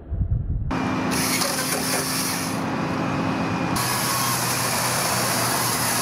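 Steady mechanical noise of tree-trimming machinery running, cutting in abruptly about a second in after a low wind rumble, with a steady low hum for the first few seconds.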